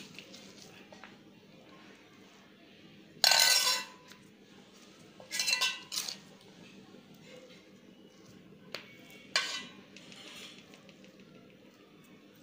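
Metal spoon scraping and clinking against a stainless steel bowl while scooping spiced potato filling, in a few short bursts: a loud scrape about three seconds in, another a couple of seconds later, then a sharp click and a brief scrape near the end.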